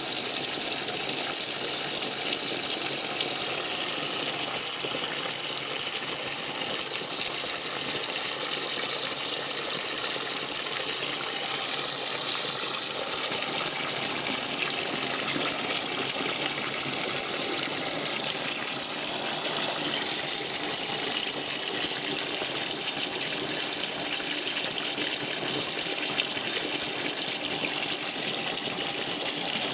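Electrolux Top 8 top-loading washing machine in its rinse cycle, water gushing steadily through the machine with an even hiss.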